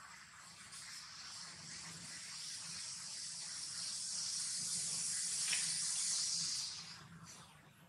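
High, hissing insect chorus that swells over about six seconds and then fades near the end.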